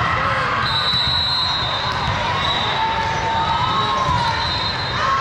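Din of a large sports hall with several volleyball matches going: volleyball hits and bounces over crowd chatter. A thin high tone comes and goes twice.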